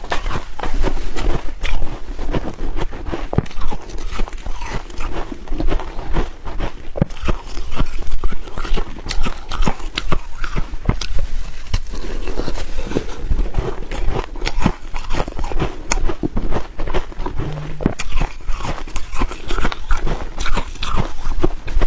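A person biting and chewing a crumbly chunk of frozen purple ice, picked up close by a clip-on microphone: dense, rapid crackling crunches.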